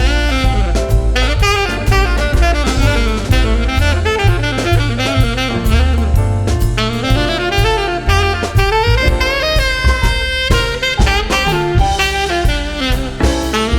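Instrumental break of a Cantonese pop ballad, with no vocals: a melodic lead line over a walking bass and a drum beat.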